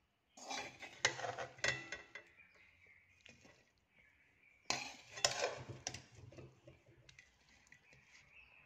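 Metal perforated spatula scraping and clinking against a metal pan while scooping and stirring fried silkworm pupae, in two bursts of clatter about four seconds apart with lighter scraping between.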